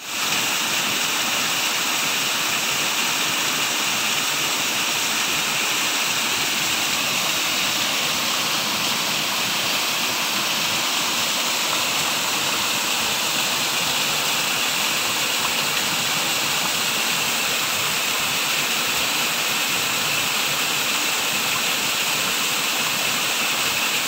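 Small forest waterfall pouring through a cleft in the boulders and splashing onto the rocks of a shallow pool: a loud, steady, even rush of water.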